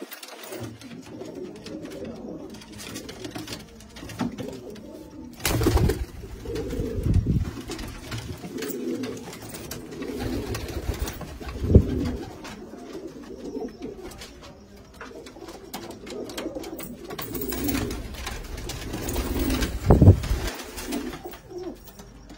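Several domestic pigeons cooing over and over, low repeated coos overlapping one another, with a few short louder thumps about five, twelve and twenty seconds in.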